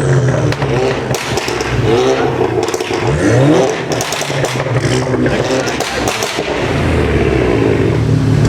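Volkswagen Golf engine revved in several quick blips, each rising and falling in pitch, with sharp crackles and pops from the exhaust between them. It then runs more steadily for the last two seconds.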